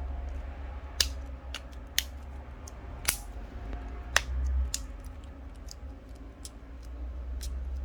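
Sharp plastic clicks of the Samsung Galaxy A51's middle frame being pressed and snapped into place on the phone, a handful of louder snaps about a second apart with fainter clicks between.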